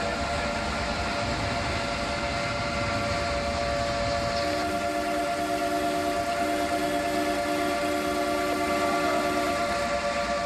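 Alarm siren sounding one steady, unchanging tone over a low noise. A second, lower tone joins in short broken blasts from about four seconds in until near the end.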